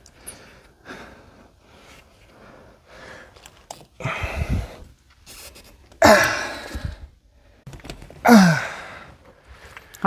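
A person sighing and exhaling heavily three times, about four, six and eight seconds in, the last with a voice falling in pitch.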